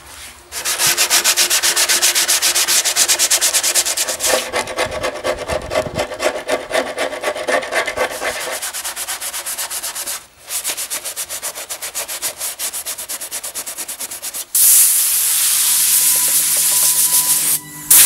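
Hand sanding of old weathered wood with a sanding sponge, in quick, rhythmic back-and-forth strokes, with a short break about ten seconds in. Near the end a compressed-air blow gun gives a loud, steady hiss for about three seconds.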